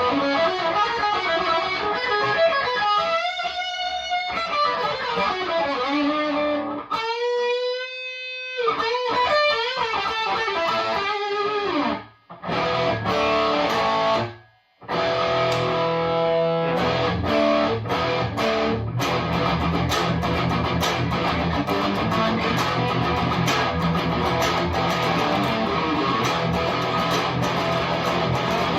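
Chibson Les Paul Custom electric guitar played through a Marshall DSL40 combo amp on its overdrive channel. Single-note lead lines with bent and wavering held notes, two brief breaks, then a fast picked riff that runs into dense, continuous playing.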